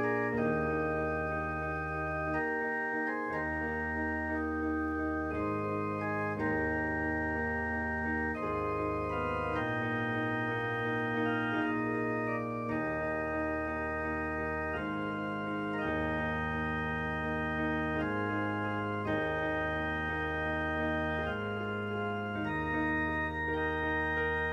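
Organ playing slow, sustained chords over held bass notes, the chords changing every second or two.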